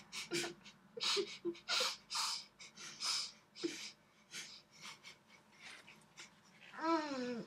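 Short, heavy breaths through the nose and muffled laughs from people with their mouths stuffed full of marshmallows, coming in a rapid string. Near the end one muffled voice slides down in pitch, like a moan through a full mouth.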